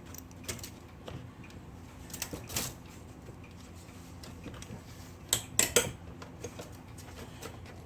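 Metal parts of a vintage Smith Corona typewriter clinking and knocking as it is taken apart by hand: scattered light clicks, with a cluster of louder knocks about five and a half seconds in.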